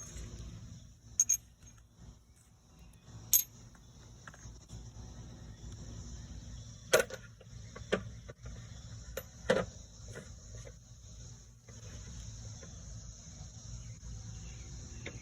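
Hand tools clinking, a socket and extension being picked up and fitted: several sharp metal clinks spaced a second or more apart, over a faint steady hiss.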